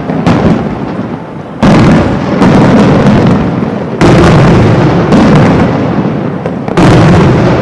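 Aerial fireworks shells bursting overhead, very loud. Three heavy bursts come a little over two seconds apart, with smaller reports between them, and each leaves a long rumbling echo.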